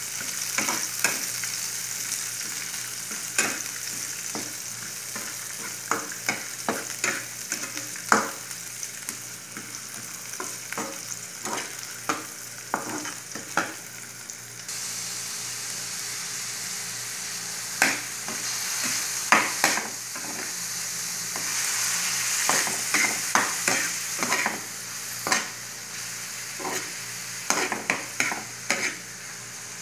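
Food frying in hot oil in a frying pan, a steady sizzle, with a metal slotted spatula clicking and scraping against the pan as it is stirred. The sizzle gets louder about halfway through.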